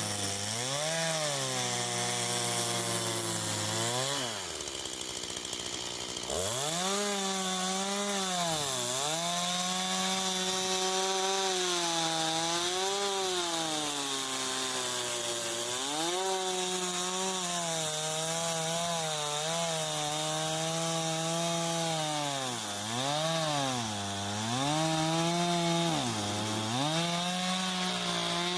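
Petrol-engined saw cutting a log, the engine running hard with its pitch repeatedly sagging under load and climbing back, dropping right down about four seconds in before revving up again.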